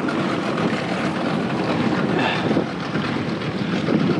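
Boat's outboard motor running steadily at trolling speed, mixed with wind and rushing water.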